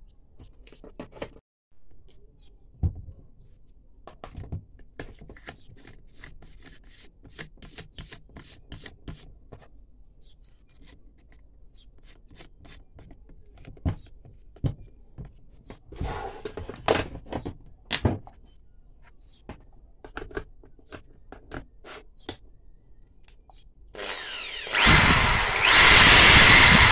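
Scattered clicks and knocks of drill bits being handled and a bit tightened into the keyless chuck by hand, then near the end the iBell TD13-100 corded electric drill switches on and runs steadily, much louder than the handling.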